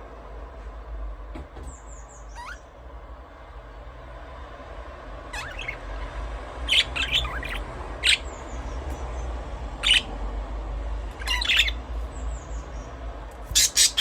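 Budgerigars chirping in short, sharp calls: a few faint ones early, then louder chirps from about five seconds in, the loudest pair near the end, over a steady low hum.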